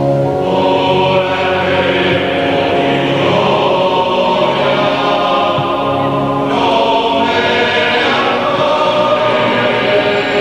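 Mixed choir of women's, girls' and men's voices singing a polyphonic piece, holding sustained chords that shift together every few seconds.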